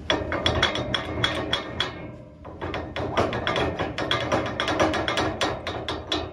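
Rapid, rhythmic metal-on-metal knocking, about five a second, as a rusted blower pulley is rocked and worked on the fan shaft of an air handler to free it. There is a short break about two seconds in.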